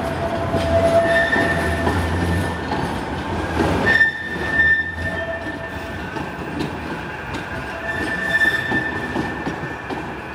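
Bombardier M5000 light-rail trams, a coupled pair, moving slowly through curved pointwork: steel wheels squealing on the curves in high ringing tones that come and go several times, over a low running rumble that eases after about four seconds.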